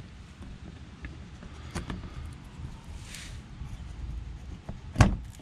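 Quiet handling noises with a faint click, then one sharp, loud click near the end, as plastic underbody-panel push-clips are pried out with a flat screwdriver.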